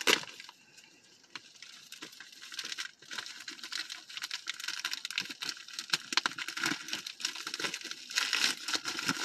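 A Happy Meal toy's bag crinkling and being torn open by hand, in irregular crackles and rustles that begin about three seconds in.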